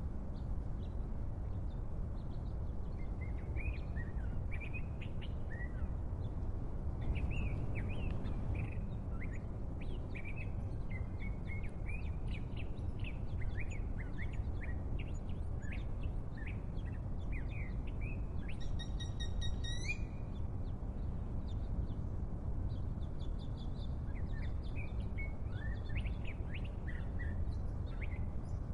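Small birds chirping in short, repeated calls over a steady low background rumble. About two-thirds of the way through, one longer, even-pitched call lasts for about a second and a half.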